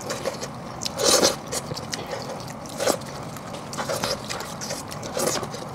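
Close-miked eating sounds: plastic-gloved hands tearing and picking meat off a cooked sheep's head, with biting and chewing. They come in irregular crackly bursts about a second apart.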